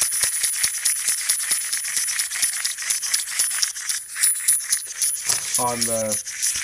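Small clockwork wind-up monkey toy running, its spring mechanism and feet clicking rapidly and evenly, about seven clicks a second.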